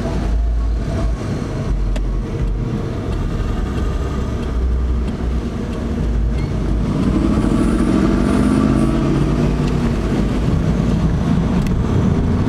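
Car engine heard from inside the cabin: a low steady rumble while waiting, then the engine revs up with rising pitch as the car pulls away about six or seven seconds in.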